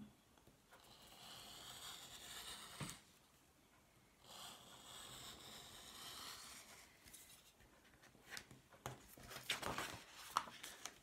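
Craft knife blade drawn through a paper stencil sheet on a cutting mat: two faint scratchy cuts of two to three seconds each, then a few light ticks and paper rustles as the sheet is moved.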